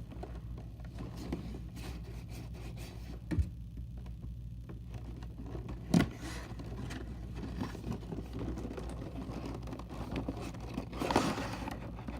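A cardboard box being opened by hand: scraping and rustling, a few sharp knocks, and a longer, louder tearing rustle near the end.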